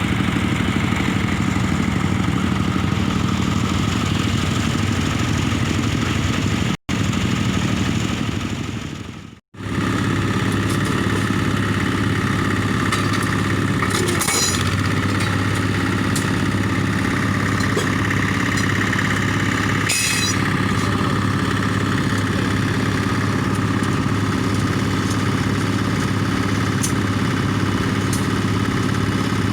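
Case 580K backhoe's four-cylinder diesel engine running steadily. The sound cuts out briefly about seven seconds in and again around nine and a half seconds, and a few short metallic clinks come later.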